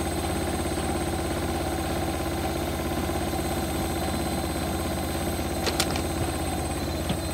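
Bosch Classixx 6 front-loading washing machine on its spin cycle, the drum spinning at high speed with a steady motor hum and whine. A few sharp clicks come about six seconds in and once more near the end.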